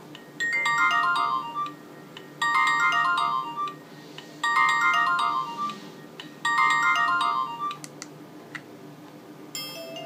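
Nokia 2310 mobile phone playing a ringtone preview through its small loudspeaker: a short, bright electronic melody repeated four times, about every two seconds. Near the end a different tone with longer held notes takes over as the next ringtone in the list is selected.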